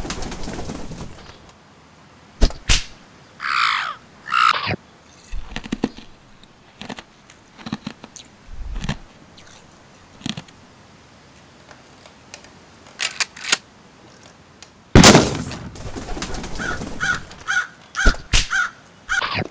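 Cartoon sound effects: a crow cawing twice about three and a half seconds in, with scattered clicks and knocks, then a loud bang about fifteen seconds in followed by a quick run of short high chirps.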